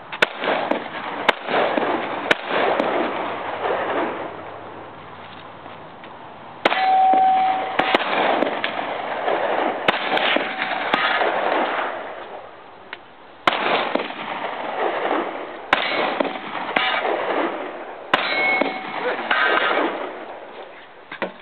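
Glock 21 .45 ACP pistol fired in a string of shots at steel targets, each hit followed by the clang and ringing of the struck steel plate, in irregular groups through a timed run.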